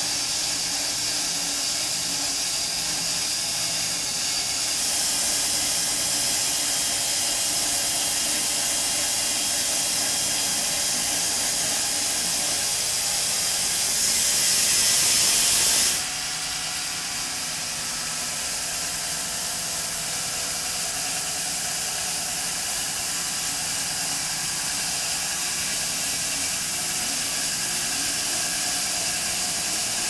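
Homemade bandsaw mill sawing through a large elm log: the steady run of the motor and band blade under a strong hiss of sawdust being thrown out. The hiss swells for a couple of seconds just past the middle, then drops suddenly.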